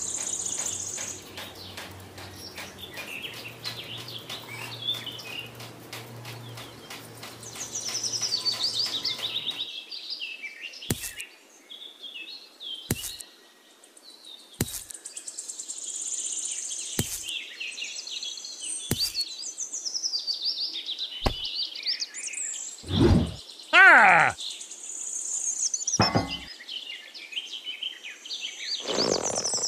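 Small birds chirping and trilling, high-pitched, throughout. A low hum sits under the first third, a sharp click comes every couple of seconds in the middle, and a louder call sliding up and down comes about three-quarters of the way through.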